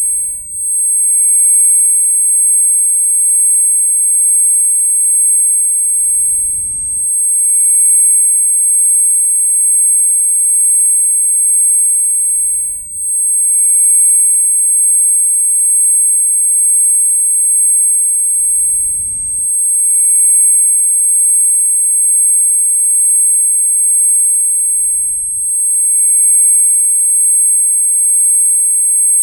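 Ear-ringing (tinnitus) sound effect: a steady, piercingly high-pitched tone with a second, slightly lower tone beneath it, holding unchanged. A faint low bump and brief dip in level come about every six seconds.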